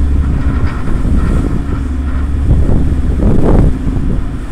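Passenger ferry's engine running with a steady low drone, overlaid by wind buffeting the phone's microphone, with stronger gusts about two and a half and three and a half seconds in.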